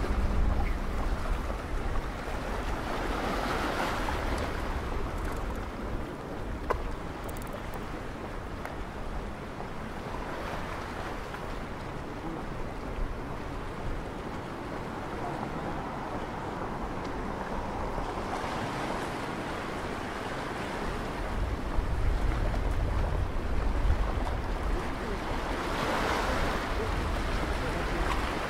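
Small sea waves washing in over a rocky shoreline, swelling and falling back about every seven or eight seconds. Wind buffets the microphone with a low rumble at the start and again toward the end.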